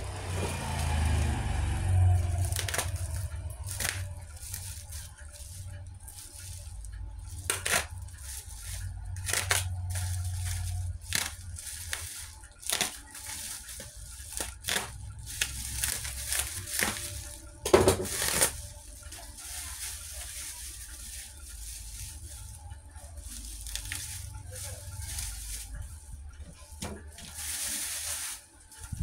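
A bubble-wrap and packing-tape parcel being unwrapped by hand and cut open with scissors: irregular crinkling, crackling and tearing of plastic, loudest about 18 seconds in.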